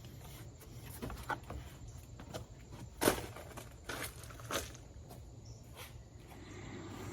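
A few scattered footsteps and light knocks over a low background, the loudest knock about three seconds in.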